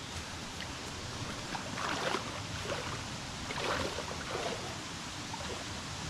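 A person wading into a shallow rocky pool, with water sloshing and splashing around the legs at a few of the steps, over the steady rush of a waterfall.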